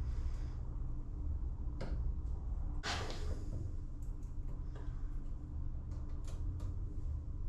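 Light metallic clicks and taps from hands setting up the cutting tool on a Mira Centronic valve seat machine, a handful of them with the loudest about three seconds in, over a steady low hum.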